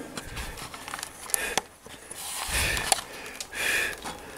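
A few light clicks from a hand working a cast-iron stove-top plate, then two short breathy sniffs, each under a second long.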